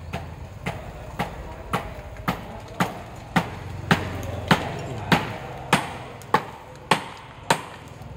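Hammer blows struck at a steady pace, a little under two a second, about thirteen in all. They grow louder toward the middle and stop shortly before the end.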